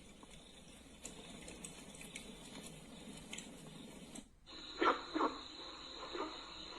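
Sound played through the alarm clock's small speaker: a soft crackling hiss that cuts off about four seconds in, then a recorded cricket-chirping sound with repeated short chirps over a steady high trill.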